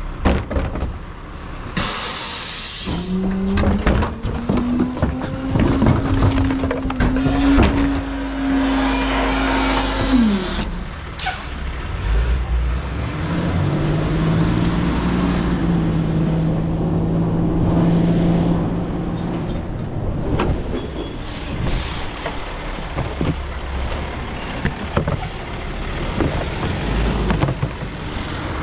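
Garbage truck at work: a sharp air-brake hiss about two seconds in, then a whine that climbs in pitch for several seconds, a second lower whine later, and scattered clanks and knocks over the running engine.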